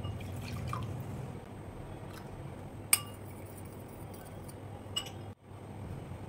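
Milk poured into a small glass bowl, then a metal spoon stirring it, clinking sharply against the glass once about three seconds in and again more lightly near five seconds, over a steady low hum.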